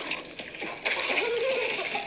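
Live-action movie trailer soundtrack played from a television: a short lull, then indistinct voices about a second in.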